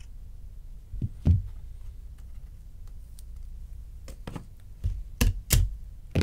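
Hard knocks and clicks as card display stands are handled and set down on a table, two a little after a second in and a quicker run of five or six near the end, over a low steady hum.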